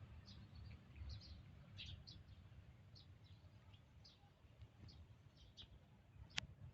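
Faint, short high-pitched chirps, repeating irregularly over a low background rumble, with one sharp click near the end.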